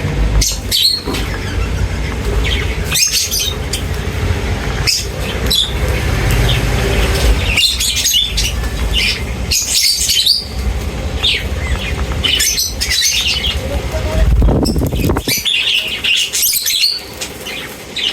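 Small birds chirping in many short high notes, with wings fluttering, over a low rumble.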